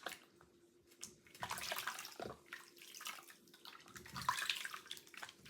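Water splashing and running in uneven spurts as soapy hands are washed and rinsed, starting after about a second.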